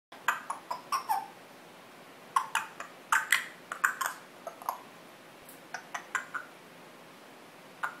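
Congo African grey parrot making a series of short, sharp clicks in three quick clusters with pauses between, a few with a brief falling chirp after them.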